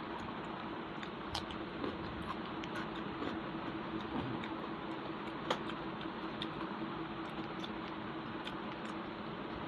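Person eating rice by hand from a steel plate: soft chewing and small scattered clicks of fingers and rice against the plate, one sharper click about five and a half seconds in. Under it runs a steady hiss with a low hum.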